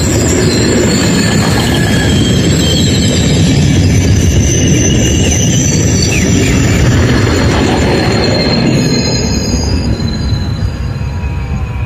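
SKPL SN84 diesel railcar passing close by: a heavy rumble of engine and wheels on the rails, with thin high wheel-squeal tones above it, dying away over the last couple of seconds as it goes by.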